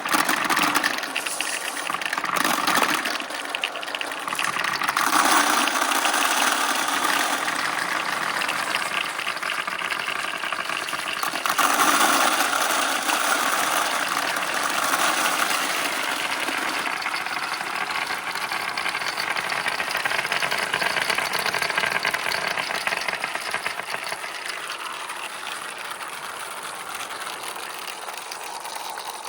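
Many glass marbles rolling and clattering through a marble run track, a dense rattle of small clicks that swells about five seconds in and again around twelve seconds, then thins out near the end.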